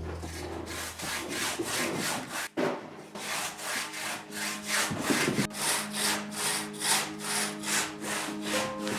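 Handsaw cutting through a stone wall in rhythmic back-and-forth strokes, about two to three a second, with short breaks about two and a half and five and a half seconds in.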